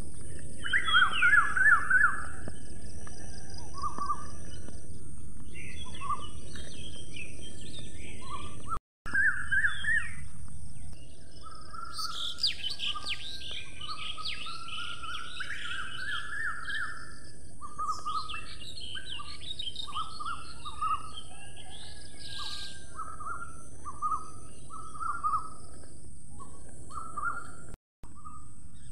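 Birds chirping and calling in short repeated phrases over a steady high hiss and low outdoor background noise. The sound drops out briefly twice, about nine seconds in and near the end.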